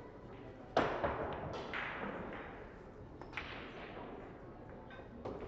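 Pool balls clacking on a table: a sharp crack about a second in, then a few more knocks, each trailing off.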